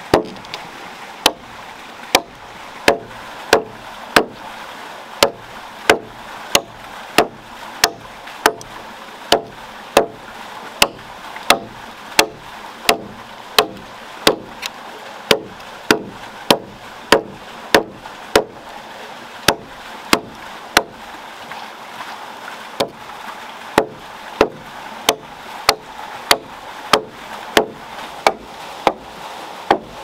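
Axe chopping into a peeled log to cut out a joint notch: sharp wooden strokes in a steady rhythm, a little more than one a second.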